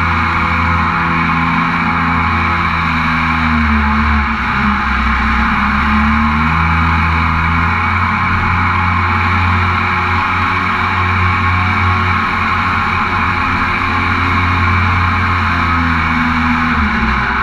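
Mini jet boat's engine running under way, with a steady rush of water and wind. The low engine note steps up and down a few times.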